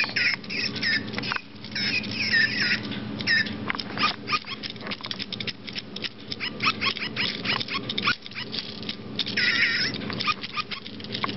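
Micro Pets robotic toy dog making high, warbling electronic chirps in the first few seconds and again near the end, over a steady low hum and rapid clicking as it moves across the floor.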